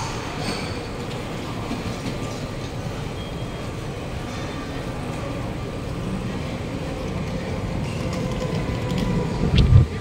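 Kawasaki Heavy Industries C151 metro train arriving at the platform: its rumble grows louder over the last few seconds, with a faint whine slowly falling in pitch from its GTO-VVVF traction equipment as it brakes. A brief low thump comes near the end.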